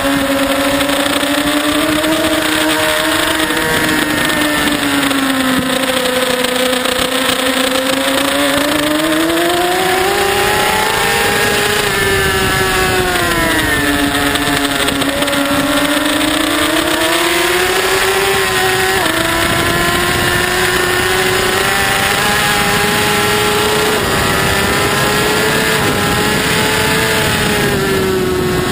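Onboard sound of a racing superbike's engine at high revs, its pitch rising and falling several times as the throttle is opened and rolled off through the corners, with a small sudden drop in pitch about two-thirds of the way through, as at a gear change.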